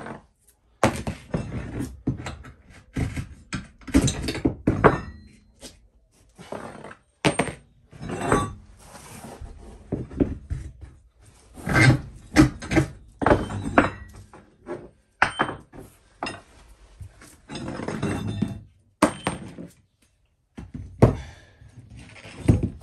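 Irregular thunks and knocks on a camper slide-out's OSB wooden floor, sometimes several in quick succession, with a few longer scuffs between them and a brief pause near the end.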